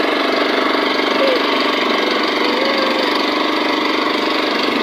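A boat's engine running steadily with a rapid, even chugging.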